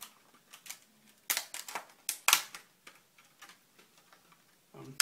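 Small sharp clicks and taps of a laptop RAM module being handled and pushed into a MacBook Pro's lower memory slot, with two louder clicks about a second apart near the middle.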